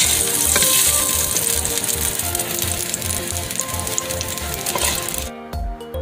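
Carrots, potatoes and onion sizzling as they fry in oil in a pot, with background music under it. The sizzle cuts off suddenly about five seconds in, leaving only the music.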